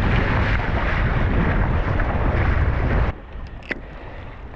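Wind buffeting the microphone, a loud low rumble that stops abruptly about three seconds in, leaving a quieter background with one brief high squeak.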